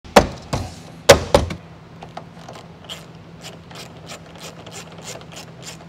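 Four sharp knocks in the first second and a half as a hand strikes a car's interior door trim panel, seating its clips, followed by a faint, even ticking about four times a second.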